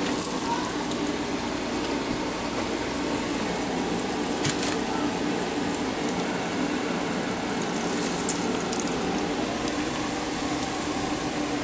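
Battered, bacon-wrapped candy bar deep-frying in a pot of hot grease: a steady sizzle and bubbling, with a brief click about four and a half seconds in.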